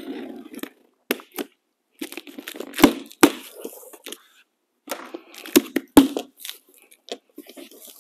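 Cardboard shipping box being opened: packing tape slit and the flaps torn and pulled apart, a run of sharp cracks with rustling cardboard between them, the loudest cracks about three and six seconds in.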